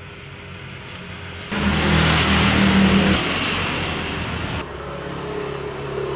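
A motor vehicle engine running close by. It comes in suddenly about one and a half seconds in, is loudest for the next couple of seconds, then eases off.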